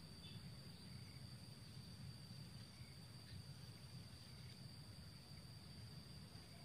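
Near silence outdoors: a faint, steady high-pitched drone of crickets or other insects, over a low even background rumble.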